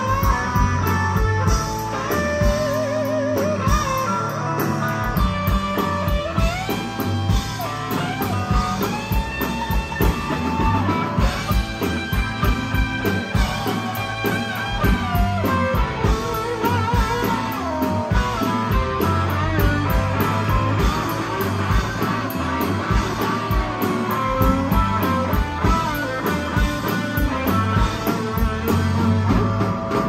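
Live rock band playing: a lead electric guitar solo of held, bent notes with vibrato over drums and bass guitar.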